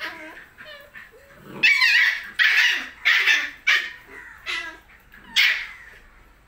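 Doberman and German Shepherd puppies play-fighting, yipping and barking: softer calls at first, then a run of about six loud, high-pitched barks.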